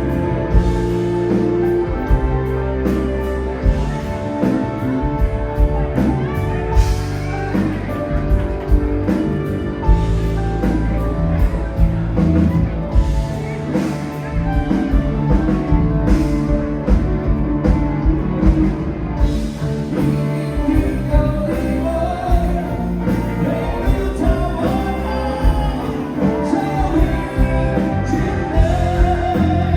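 A live bar band plays a rock-style song with a singer, over a steady drum beat.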